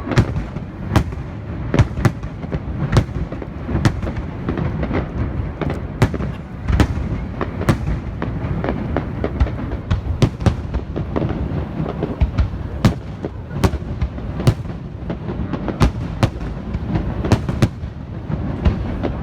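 Aerial fireworks display: a rapid, irregular barrage of sharp bangs, often more than one a second, over a continuous rumble of overlapping bursts.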